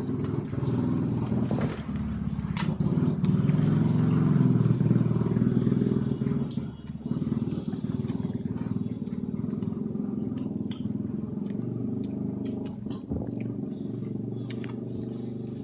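A low, steady engine-like drone that swells for a few seconds about three seconds in, then eases off. Scattered light clicks sound over it.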